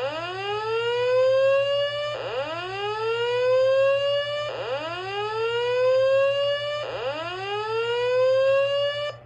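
Fire alarm speaker strobe (System Sensor SPSR) sounding the slow whoop tone of a voice evacuation message: four rising whoops, each about two and a quarter seconds long, that snap off and start again from the bottom.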